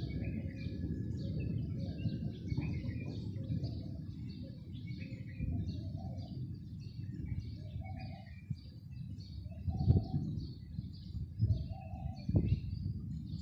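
Small birds chirping continuously and a dove cooing several times, over a steady low rumble, with two sharper low jolts about ten and twelve seconds in.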